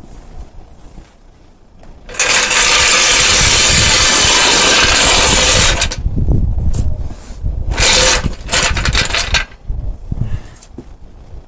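Impact wrench running on a wheel's lug nuts during a tyre change: one long run of about four seconds, then a shorter burst of about a second and a half, with lighter clanks in between.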